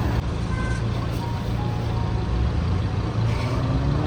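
Steady low rumble of a car's engine and tyres on the road, heard from inside the moving car, with faint music.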